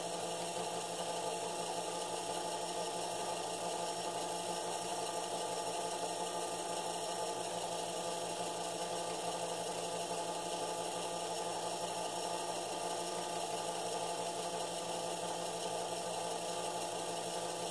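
Toy-car flywheel gear mechanism spinning two magnets beside a copper coil, running with a steady mechanical whir and hum that does not change.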